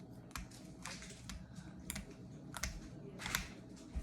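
Slime being poked with fingers: a few small, irregular sticky clicks and pops.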